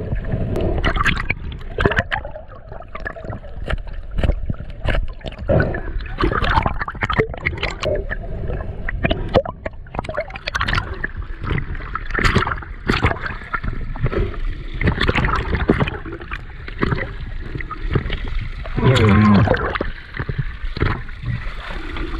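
Water sloshing, gurgling and splashing close around a GoPro as a swimmer kicks through the sea, the camera dipping in and out of the water, in a run of irregular sudden splashes. A brief, louder muffled pitched sound comes about three-quarters of the way through.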